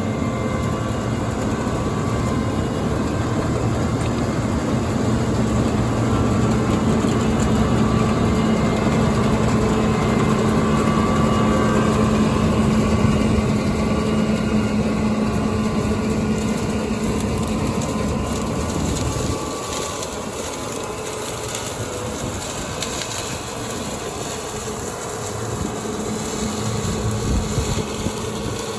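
Heavy farm machinery engine running steadily with a low hum. The sound drops in level and thins out about two-thirds of the way through.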